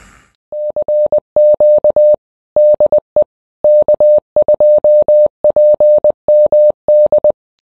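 Morse code beeps: a single steady tone keyed on and off in short and long elements, sent in groups with short gaps between them.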